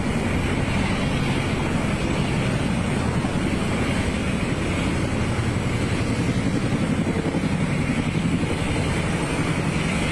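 Steady rumble and high whine of a parked jet aircraft's turbine running on the airport apron, with wind buffeting the microphone.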